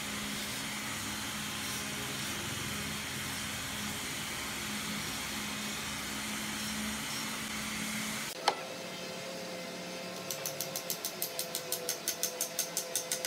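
A machine runs steadily with a low hum, then cuts off abruptly after about eight seconds with a sharp click. A fainter steady tone follows, and from about ten seconds in a run of quick, evenly spaced strokes, about four a second, grows louder.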